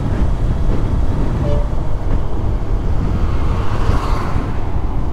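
Steady wind buffeting and road noise from a motorcycle riding at speed, a dense low rumble with no break.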